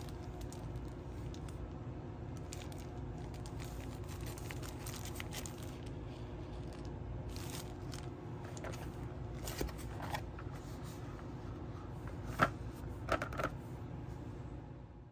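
Clear plastic packaging crinkling and rustling as a wrapped pack of paper is handled, with a few sharp taps near the end, over a steady low background hum.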